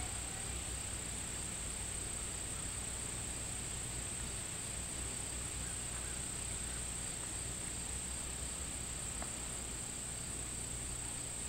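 Steady high-pitched chorus of insects such as crickets, unbroken, over a low hum.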